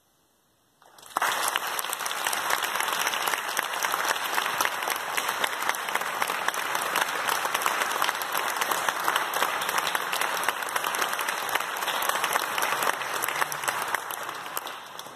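Audience applause, breaking out about a second in and dying away near the end.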